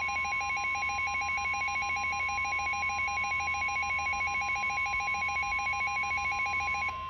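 Emergency alert tones ahead of a weather warning. A rapidly pulsing, phone-ring-like alert tone sounds over a steady high attention tone. The pulsing stops near the end while the steady tone carries on.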